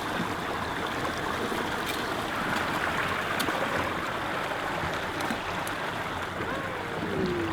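Steady rush of water pouring over a small river waterfall at a dam overspill, with a few faint clicks.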